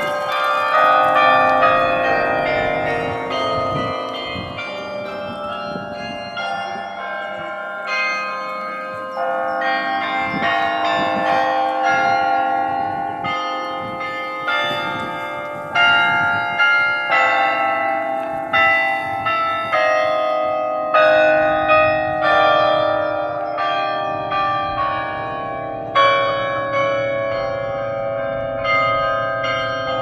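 The 68-bell Berlin Carillon played by hand, its bronze bells struck one after another in a tune with chords, each note ringing on under the next. The strikes grow sharper and louder from about halfway through.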